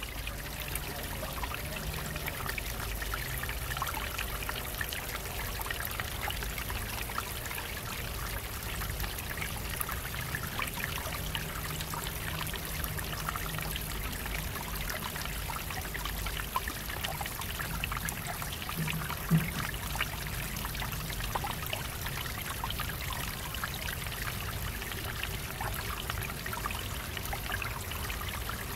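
Water trickling and splattering steadily down a stacked stone wall in several thin streams, a constant light patter of drips and splashes. A single short knock sounds about two-thirds of the way through.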